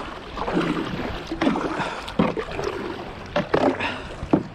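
Double-bladed kayak paddle strokes, the blades dipping and splashing in shallow river water, roughly one stroke a second.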